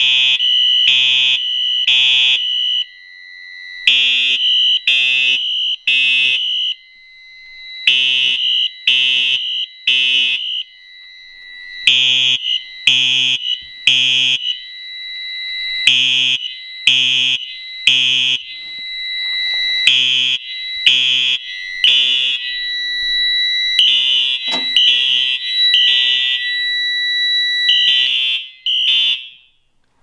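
Fire alarm horns sounding in the temporal-three evacuation pattern: three blasts about a second apart, then a pause, repeating about every four seconds, over a steady high tone. This is the alarm set off by a photoelectric smoke detector. The horns are taped over to make them a little quieter, and all of it cuts off near the end.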